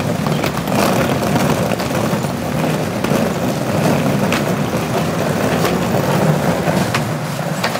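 Wheels of a hard-shell rolling suitcase rumbling over a concrete sidewalk, with a few sharp clicks as they cross pavement joints. The rumble drops away near the end.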